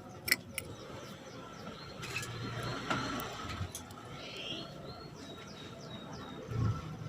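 Female canary giving short chirping call notes, with a quick run of several short falling notes about four to five seconds in. A sharp click sounds near the start.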